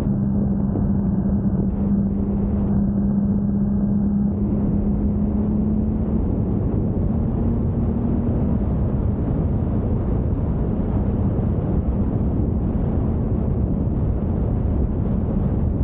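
Motorcycle cruising at about 80 km/h in fifth gear: a steady engine hum under heavy wind rush and road rumble. The engine tone rises slightly about six seconds in, then sinks into the wind noise.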